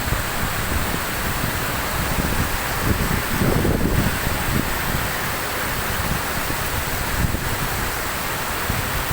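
Waterfall rushing steadily, with wind rumbling on the microphone; the rumble is heavier for about a second a little over three seconds in.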